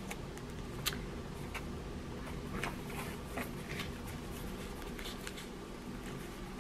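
Faint scattered rustles and light clicks as a graduation cap covered in paper and artificial flowers is handled and turned over, over a steady low room hum.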